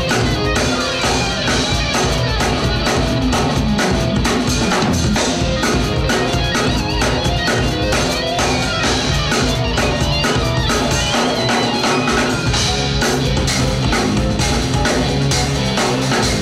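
Acoustic drum kit played with a busy, unbroken stream of strokes on drums and cymbals, over music with a guitar part.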